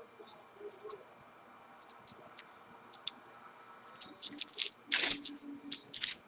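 Stiff Topps Chrome trading cards being handled and flicked through, a run of sharp clicks and light scrapes that grow busier in the second half, loudest about five seconds in.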